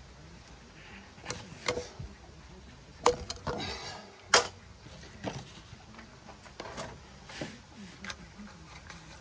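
Hands working on a ceramic toilet cistern and its plastic fittings: scattered light clicks and knocks. The two loudest are sharp knocks about three and four and a half seconds in.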